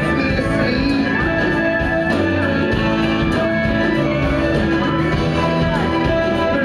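Live band playing: acoustic guitar strumming and violin, with a man singing into the microphone.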